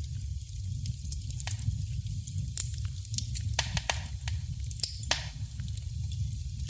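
Wood fire crackling in a fireplace: a steady low rumble of the flames with irregular sharp pops and snaps, a few louder ones in the middle.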